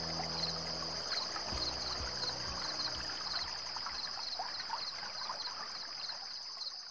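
Night chorus of insects, crickets trilling steadily in a high, evenly pulsing drone, with scattered short frog calls.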